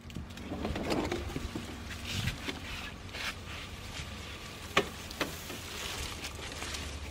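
Dry leaves rustling and crackling as a flat-screen TV is lifted out of leaf litter, with scattered small clicks and one sharp click about five seconds in.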